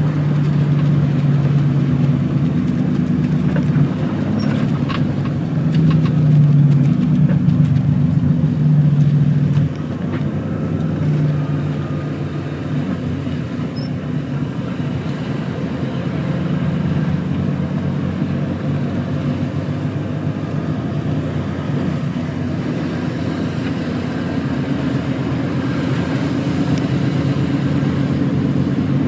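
Heavy truck's diesel engine running on the move, with tyre and road noise. The engine is louder for the first nine seconds or so, drops suddenly about a third of the way in, then runs steadily.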